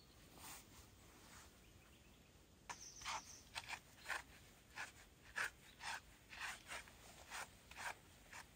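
Cloth rubbing back and forth over a dog's paw to wipe it clean: short scrubbing strokes, two or three a second, starting a few seconds in.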